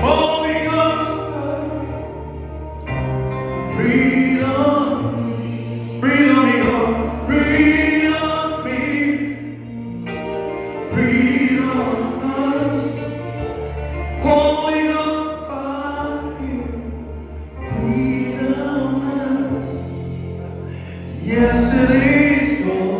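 Gospel worship singing: a sung melody in slow phrases of a few seconds each, over sustained low instrumental chords that change every few seconds.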